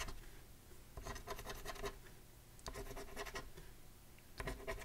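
A coin scratching the latex coating off a lottery scratch-off ticket on a wooden table, in short bursts of quick strokes with brief pauses between them as each number spot is uncovered.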